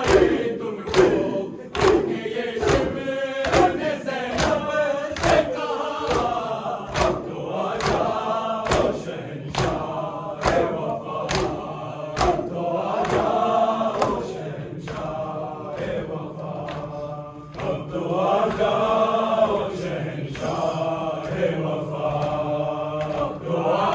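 Men's voices chanting a noha (Shia lament for Muharram) in unison over the sharp, regular slaps of matam, hands striking chests about one and a half times a second. The slaps thin out about halfway through and all but stop, while the chanting carries on.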